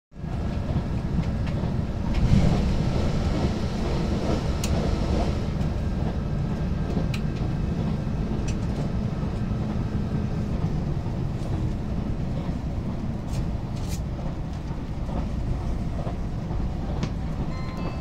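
Inside the cabin of a JR Shikoku 2000 series diesel railcar running at speed: a steady low rumble of the diesel engines and wheels on the rails. It swells briefly about two seconds in, and a few sharp clicks are heard along the way.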